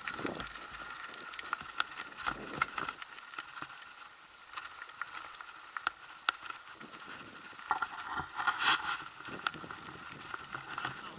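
Mountain bike rolling over a rough, stony dirt track: irregular clicks, knocks and rattles from the bike and camera mount, with wind buffeting the microphone in the first seconds and a louder rasping burst past the middle.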